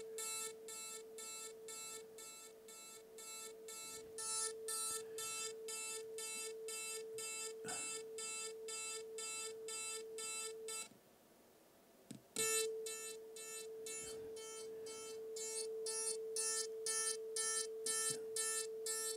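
Synthesized tone from a Teensy 3.2's DAC: two sine waves at 441 and 443 Hz, one through a chorus and one through a delay, mixed into a steady hum near 440 Hz. Buzzy overtones pulse over it about three times a second. The tone cuts out for about a second and a half a little after ten seconds in, then comes back after a click.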